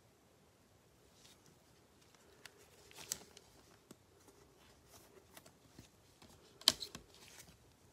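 Gloved hands handling football trading cards and a clear plastic card holder: faint sliding and rustling with a few light clicks, the sharpest near the end.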